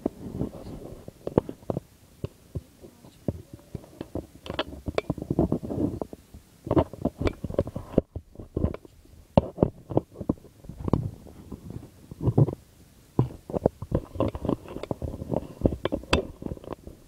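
Handling noise from a phone held close to its microphone: irregular clicks and knocks with low rumbling in between, as fingers shift and rub on the phone while it is moved about.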